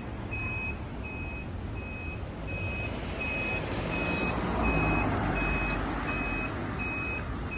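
Evenly repeated electronic beeping, about one and a half beeps a second, over the low running of a large fire rescue truck's engine as it drives slowly past. The engine rumble swells about four to five seconds in.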